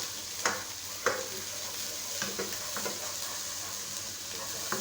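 Fresh chili and garlic paste sizzling steadily in hot oil in a pan, with a few sharp clicks of a utensil knocking the pan as it is stirred.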